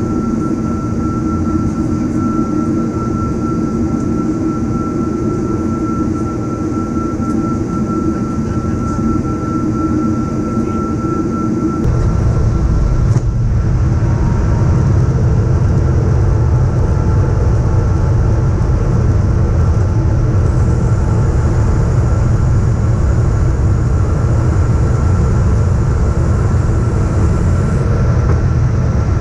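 Steady cabin noise inside a Boeing 777-236ER on descent: engine and airflow rumble with a thin steady high tone. About twelve seconds in, the low rumble grows louder and deeper.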